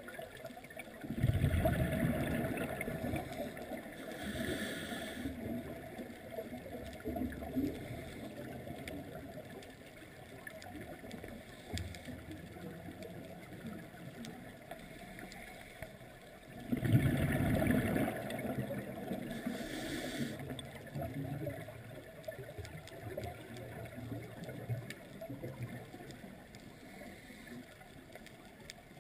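Scuba diver's breathing heard underwater through the camera housing: twice, about fifteen seconds apart, a loud rush of exhaled bubbles gurgling past, each followed a couple of seconds later by a shorter, higher hiss of the regulator on the inhale, over a steady low underwater rumble.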